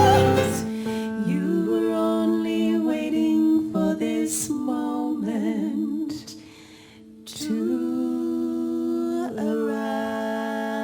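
Female voices singing long, wordless held notes in harmony, with vibrato, briefly dropping away about six and a half seconds in.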